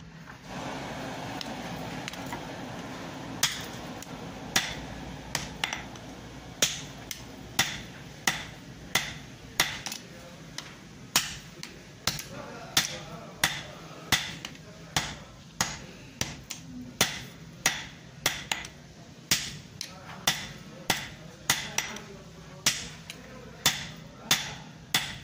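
Hand hammer striking red-hot iron on a steel block anvil: sharp ringing blows, about two a second, starting after about three seconds of steady noise with no strikes.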